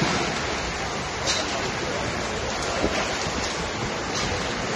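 Heavy rain falling in a steady downpour, an even rushing noise with no let-up.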